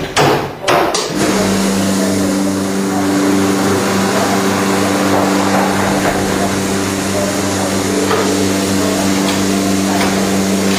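A few loud knocks as the vacuum press's hinged frame is shut, then, about a second in, the press's vacuum pump starts and runs with a steady hum.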